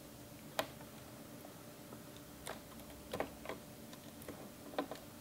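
Faint, irregular small clicks and taps from fingers working a small wire connector loose from a 2011 iMac's logic board.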